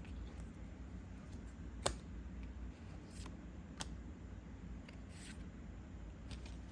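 Trading cards and a foil booster pack being handled: a few sharp card clicks, the loudest about two seconds in, and short papery rustles, over a low steady hum.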